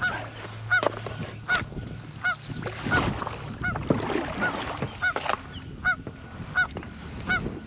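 Geese honking over and over, a short arched honk roughly every half to three-quarters of a second.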